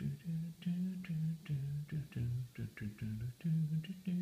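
A man humming a tune with his mouth closed: short held notes that step up and down in pitch, one after another without words.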